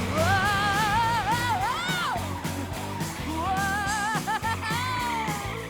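Cartoon background music: a steady low beat under a wavering, sliding lead melody, in two phrases with a short gap about two seconds in.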